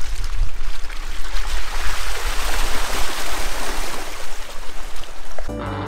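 Truck driving through deep mud: a loud engine rumble under the hiss of tyres churning and mud and water splashing against the body, which swells in the middle.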